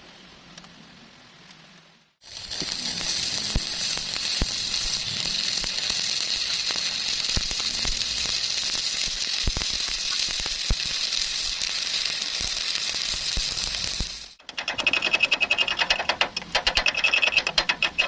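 Stick (shielded metal arc) welding arc burning on plate: a steady, dense crackle and hiss from about two seconds in, stopping abruptly about twelve seconds later as the arc is broken. It is followed by a fast run of sharp, regular metallic ticks.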